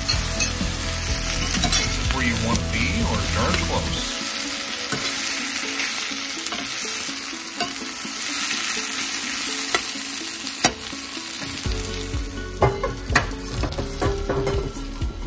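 Sliced onions and bell peppers sizzling as they fry in a stainless steel pan, stirred with a slotted spatula. The spatula's clicks and scrapes against the pan come through the steady sizzle, more often near the end.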